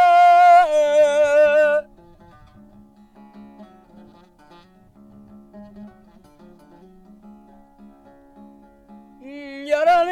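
Folk singing with a long, wavering held note that stops about two seconds in. A plucked string instrument then plays a soft melody alone, and the voice comes back in near the end.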